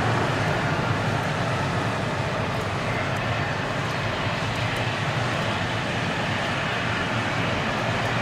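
Jet engine noise from a Boeing 777-300 rolling out on a wet runway just after touchdown: a steady rushing noise that eases slightly in the first second.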